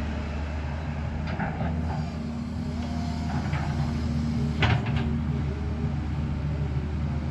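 JCB excavator's diesel engine running steadily, with a few short metallic knocks, the loudest about two-thirds of the way through.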